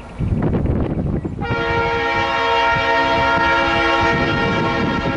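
Diesel locomotive's air horn sounding one long steady blast from about a second and a half in, for the grade crossing. Under it is the rumble of the approaching locomotive.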